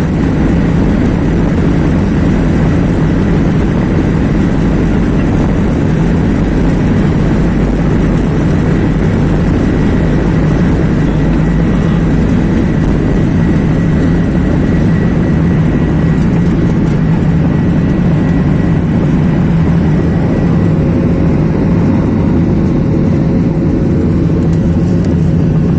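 Steady engine and airflow noise inside an airliner's passenger cabin during the climb, with a faint high whine.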